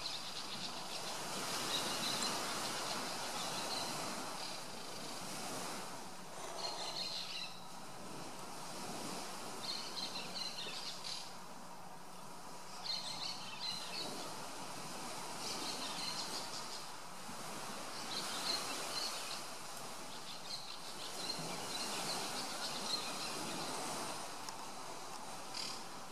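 Outdoor ambience: a steady hiss with short bursts of bird calls recurring every two to three seconds.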